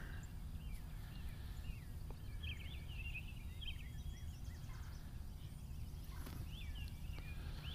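Small birds chirping and singing from the surrounding trees in short, quick phrases, busiest about two and a half seconds in and again near the six-second mark, over a steady low rumble.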